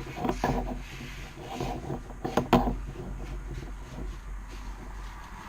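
Hands working on a tiller's throttle cable and its fittings: irregular rubbing, scraping and small clicks of metal parts being handled, with one sharper knock about two and a half seconds in.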